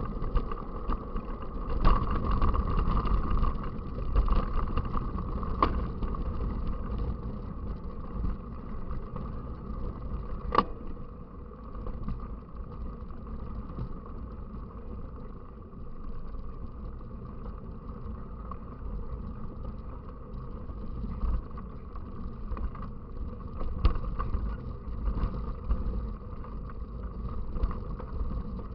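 Riding noise from a camera mounted on a mountain bike: a steady rumble of tyres and wind on the microphone, with a few sharp knocks from bumps.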